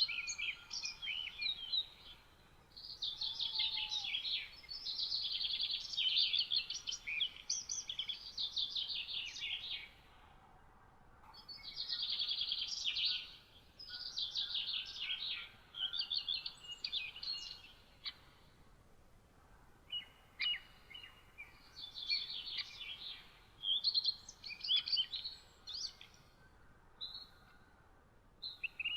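Songbirds singing in quick, trilling phrases a few seconds long, separated by short pauses.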